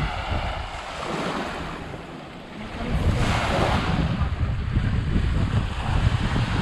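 Small waves washing up on a sandy shore, with a stronger wash about three seconds in. Wind buffets the microphone, rumbling through the second half.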